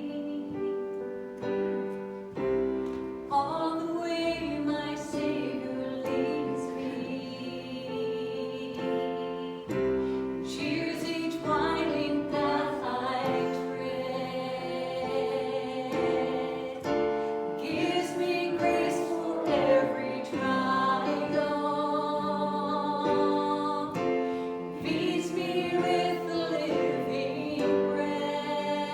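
Worship singing with keyboard accompaniment: voices holding sustained, wavering notes over steady chords.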